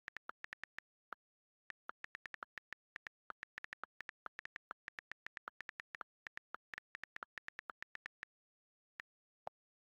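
iPhone on-screen keyboard click sounds while a text message is typed: a rapid run of short, crisp ticks, several a second, with a brief pause a little over a second in and two last separate clicks near the end, the final one lower in pitch.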